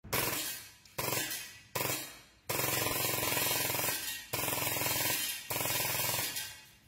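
AAC AAP-01 gas blowback airsoft pistol firing full-auto from an AW drum magazine, a rapid run of shots with the slide cycling. It fires three short bursts, then three longer strings, each ending in a fading echo.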